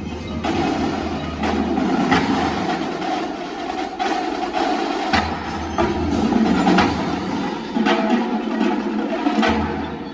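Marching band playing, with its percussion section striking sharp drum hits over the ensemble.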